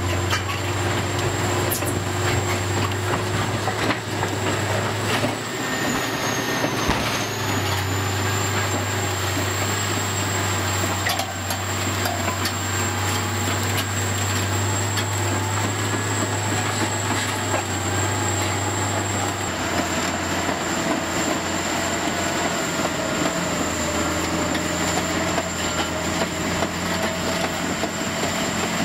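Caterpillar D11N crawler dozer working under load: a steady, deep diesel engine drone with a thin high whine above it, the engine note shifting about two-thirds of the way in.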